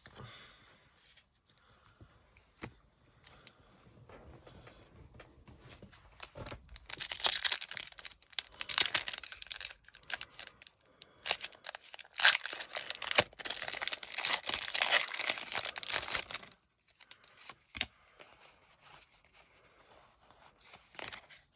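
Foil wrapper of a Pokémon TCG booster pack being torn open and crinkled: a few faint taps and handling noises, then about ten seconds of loud, noisy tearing and rustling that stops abruptly.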